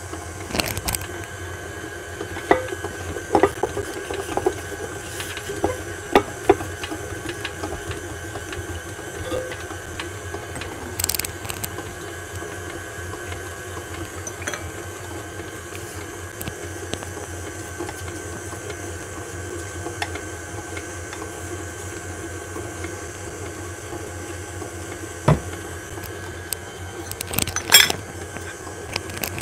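Electric stand mixer running steadily, its motor and gears humming as the beater mixes cake batter in a glass bowl. A few sharp clicks and knocks sound over the hum a few seconds in and again near the end.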